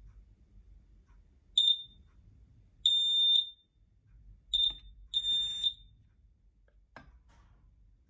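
Wireless battery smoke alarm's sounder beeping while its test button is held: a short high-pitched beep then a longer one, and the same again. The long beep signals that the alarm has been cleared. A single sharp click follows near the end.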